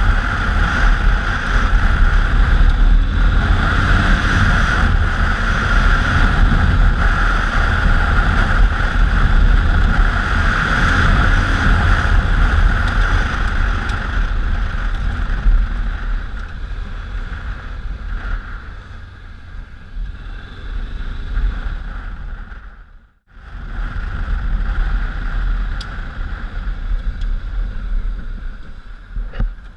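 Honda Africa Twin motorcycle's V-twin engine running under way off-road, heard through heavy wind noise on the GoPro's microphone. The sound eases off in the second half, cuts out for a moment about two-thirds through, then carries on quieter.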